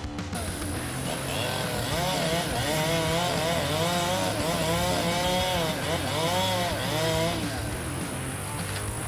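Chainsaw running, its engine pitch rising and falling over and over for a few seconds, then settling.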